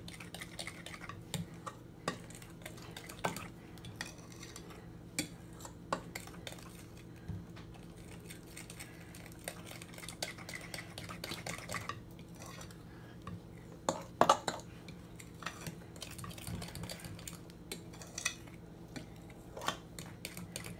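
A metal spoon stirring in a bowl of cake batter, with irregular clinks and taps against the bowl as flour is worked little by little into beaten eggs, sugar and oil. The loudest knocks come about fourteen seconds in, over a steady low hum.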